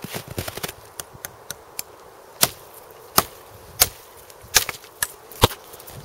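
Gerber Bear Grylls parang chopping into the wood of a dead, felled tree: a series of sharp blade strikes, lighter ones in the first two seconds, then six hard chops spaced a little under a second apart.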